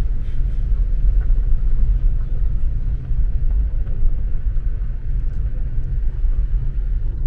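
Low, steady rumble of a car driving slowly on a gravel road, heard from inside the cabin: tyre and road noise with the engine underneath.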